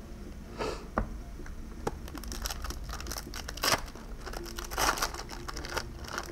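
Foil wrapper of a Pokémon TCG booster pack crinkling as it is handled, in several short bursts, with a couple of sharp clicks before them.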